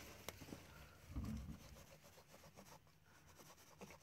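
Near silence with a few faint clicks and a short, soft low rustle about a second in: a knife working on a fish on a plastic bag.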